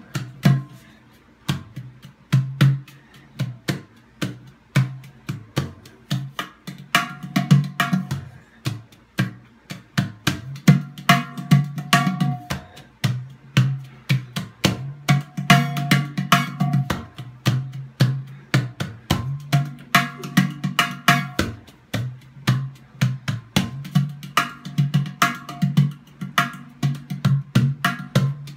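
PANArt Gudu, a hand-played steel sound sculpture, struck with the fingers in a fast, continuous rhythm: crisp finger strikes over a ringing low bass note, with a higher ringing tone sounding in some passages.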